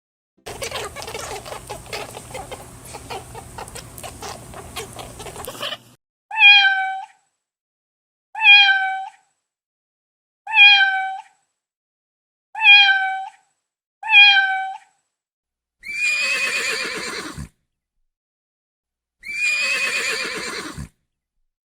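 Cat meowing: five short, slightly falling meows about two seconds apart, then two longer, wavering meows. Before them come about five seconds of dense, crackly noise full of clicks.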